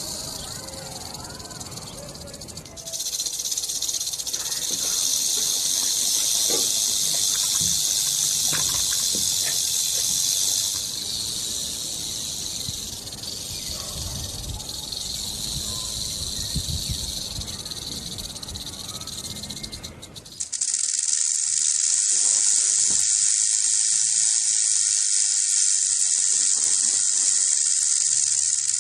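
Rattlesnake shaking its tail rattle: a continuous high, dry buzz. It swells about three seconds in, eases a little partway through, and about twenty seconds in switches abruptly to a different, louder and cleaner rattle recording.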